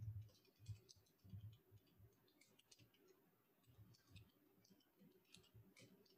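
Faint, irregular keystrokes on a computer keyboard: someone typing a word.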